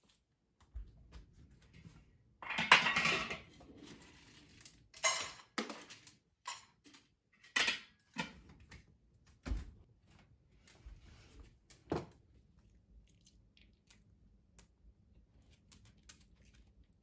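Clattering of hard household objects being handled. A loud rattling burst comes about two and a half seconds in, followed by a string of separate knocks and clinks that thin out after about twelve seconds.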